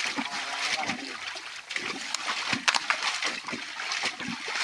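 Shallow muddy water splashing and sloshing as someone wades and gropes through it by hand, in irregular wet splashes.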